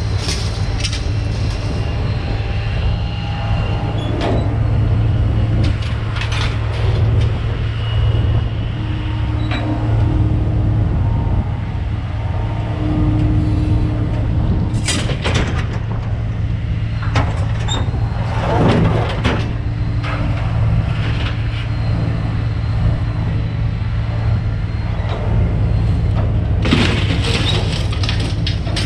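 A vehicle engine running steadily, with occasional metallic clanks and scrapes over it.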